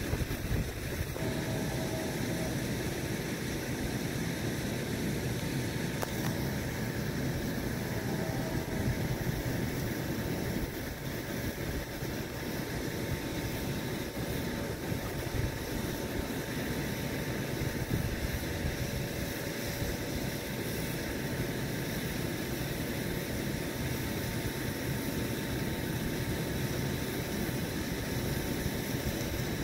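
Steady background of wind gusting on the microphone and the continuous hum of a water-intake pumping facility, with a thin steady whine running through it.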